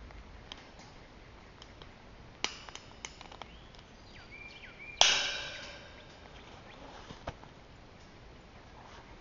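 Bolt cutters cutting the steel wire of a cattle panel. There is a small metallic click about two and a half seconds in, then a loud sharp snap about five seconds in as the wire parts, with the panel ringing for about a second after. A few lighter clicks follow.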